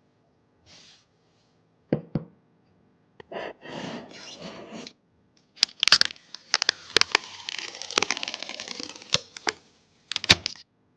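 Packaging being opened and handled by hand: sharp clicks and snaps with stretches of rustling and tearing.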